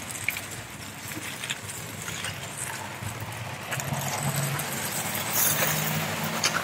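A foil-wrapped fish is flipped on a gas grill grate with wooden spatulas: scattered knocks and scrapes of wood on the grate and crinkling of aluminium foil. A low steady hum comes in about four seconds in.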